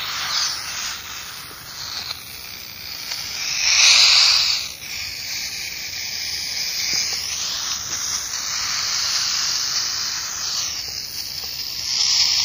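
Radio static hiss from a mobile phone's FM radio, used as a ghost-hunting "spirit box". It swells louder about four seconds in, then settles into a steady hiss.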